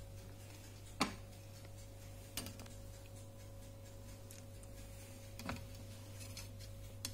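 A few light clicks of a metal knife and fork touching ceramic plates as slices of sponge cake are moved onto a plate, the sharpest about a second in, over a faint steady hum.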